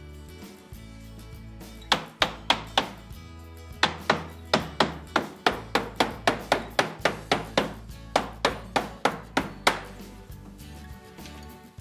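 A hammer tapping PVC glazing beads into a plastic window frame: four sharp taps, then a steady run of about three taps a second that stops near the end. Background music plays under it.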